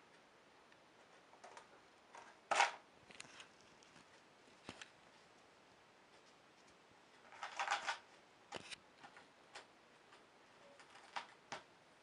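Scattered short, sharp clicks and taps at close range. The loudest comes a little over two seconds in, a quick run of several falls about two-thirds of the way through, and fainter ones follow.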